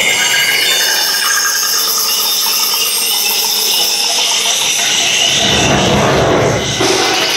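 Cinematic demo soundtrack played loud through a Sony HT-Z9F Dolby Atmos soundbar: a dense rushing whoosh with high, bright tones over it. A deeper rumble swells up about five seconds in and fades near the end.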